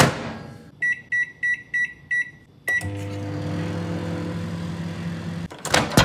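Microwave oven being set and started: a thump, then seven short keypad beeps in quick succession, then the oven running with a steady hum. A sharp clunk cuts the hum off near the end.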